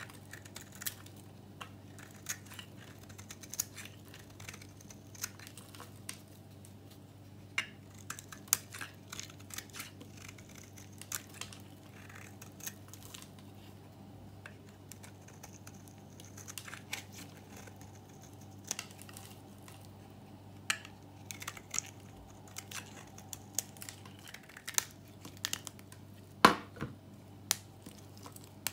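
A utility-knife blade shaving a bar of dry, varnished soap: irregular crisp crackles and snaps as the brittle shavings break away. Near the end, soap pieces are snapped between the fingers, with the loudest crack a couple of seconds before the end.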